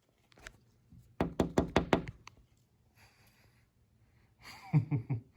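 A quick run of about five sharp knocks a little after a second in, then three or four duller thuds near the end.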